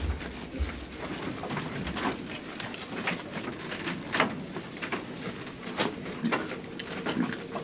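Goats feeding at a bamboo pen: scattered irregular clicks, knocks and leaf rustles as they pull at and chew leaves and grass, over a steady background hiss.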